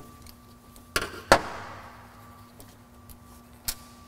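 Hand tools and small metal carburetor parts being set down and handled on a metal workbench. A few sharp clicks and knocks, the loudest a double clatter about a second in that rings out briefly, and another click near the end.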